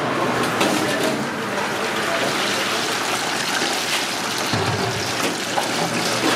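Chicken wings deep-frying in a commercial deep fryer, the oil bubbling steadily.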